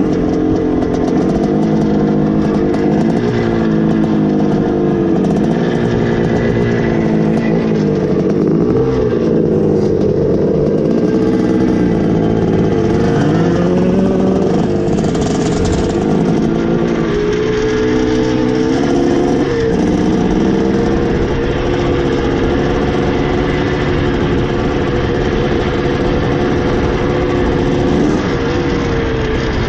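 Two-stroke dirt bike engine under way, its pitch rising and falling repeatedly as the throttle is opened and closed and the gears change.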